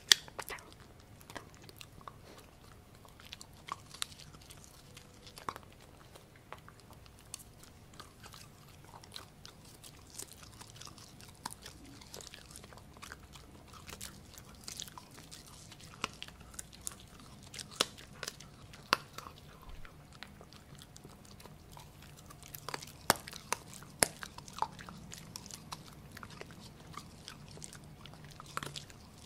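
Pomsky puppy (Husky × Pomeranian) chewing a piece of pork: irregular sharp crunches and bites, with a cluster of louder crunches a few seconds before the end.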